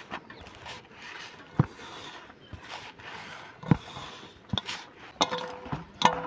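Hands kneading chapati dough in a steel plate: soft, uneven squishing and pressing strokes, with a few sharp clicks.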